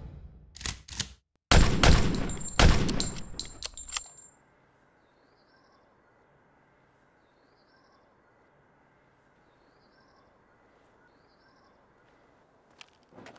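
A rapid, loud burst of sharp cracks lasting about three seconds, then faint outdoor quiet with a few bird chirps. Two soft footsteps on pavement come near the end.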